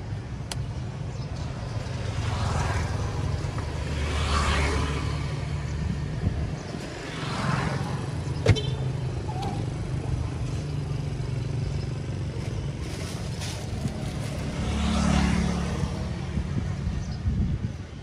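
Street traffic: a steady low engine rumble with vehicles passing by several times, each swelling and fading, and one sharp knock about eight seconds in.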